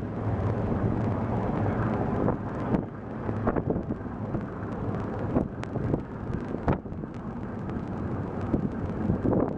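Tuk-tuk engine hum and road noise heard while riding on the back of the vehicle, with wind buffeting the microphone and a few sharp knocks or rattles along the way.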